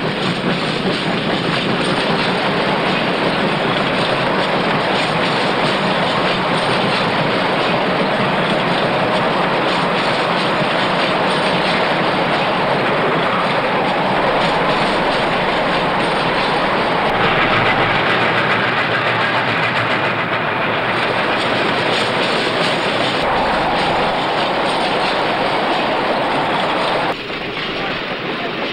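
Moving freight train: a steady rolling clatter of wheels on rails. The noise shifts in character several times and drops a little near the end.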